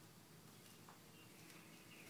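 Near silence, with one faint click a little under a second in.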